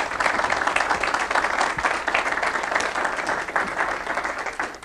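Audience applauding: dense, steady clapping that dies down near the end.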